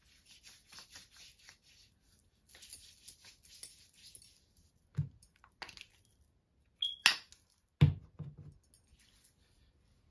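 Hands rubbing lotion into bare skin in quick, repeated strokes, in two runs. About five seconds in come a few sharp clicks, then a heavier thump near eight seconds.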